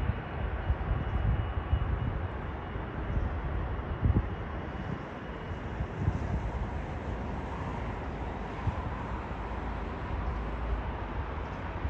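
Distant jet airliner engines, a steady rush, with low wind rumble on the microphone.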